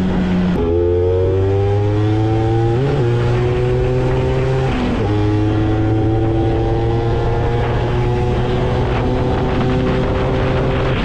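Tuned two-stroke Vespa PX engine (Quattrini M1X kit, reed valve, 34 mm Dellorto) breathing through a WhiteOne Racing W1R Torque box exhaust, accelerating hard at full throttle. The pitch climbs through the gears, drops at shifts about half a second in and about five seconds in, then rises slowly through the last gear.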